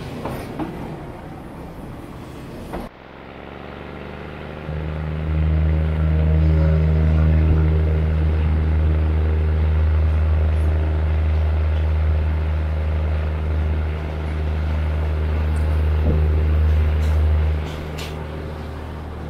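Diesel railcar's engine running as the train pulls away, heard from inside the carriage: a deep, steady drone that builds up a few seconds in and drops back near the end. Before it, a few clicks and noise beside the train as the door button is pressed.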